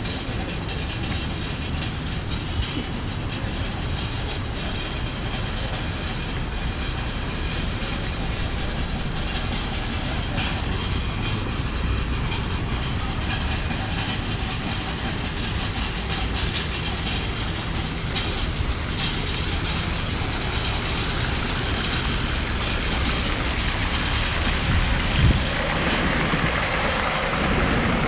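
Steady low rumbling background noise, with a single brief thump about 25 seconds in.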